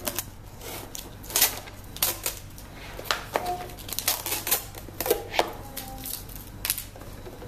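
Rigid clear plastic packaging being handled and worked loose from a cardboard box: irregular sharp clicks and crackles with a few brief squeaks.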